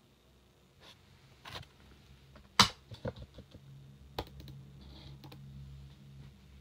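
A few scattered sharp clicks and taps, the loudest about two and a half seconds in, over a low hum that comes in around four seconds.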